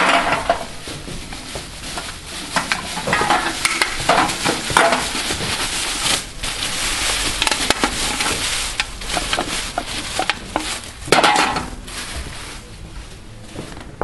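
Empty aluminium drink cans clattering and rattling in bursts as they are tipped from a plastic sack into the steel chamber of a small twin-chamber baler, quieter near the end.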